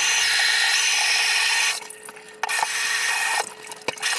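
Water gushing from a tub spout into the bathtub as a new Moen single-handle tub/shower valve is tested. The flow cuts off a little under two seconds in, runs again for about a second, then stops, with a few sharp clicks of the lever and trim.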